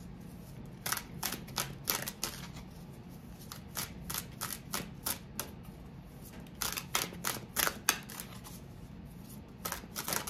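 A tarot deck being shuffled by hand: quick papery clicks and flicks of the cards in several spells, with short pauses between.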